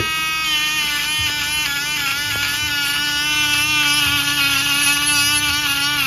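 Dremel rotary tool running with a wire-brush attachment, scrubbing green corrosion off a copper coin. Its steady high whine wavers a little in pitch as the brush works against the coin.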